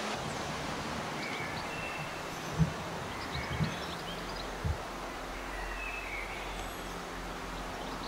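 Outdoor background noise with faint bird chirps and three soft low thumps in the middle.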